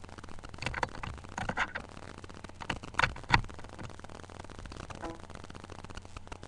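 Scattered scrapes and sharp knocks, loudest about three seconds in, over a steady low hum.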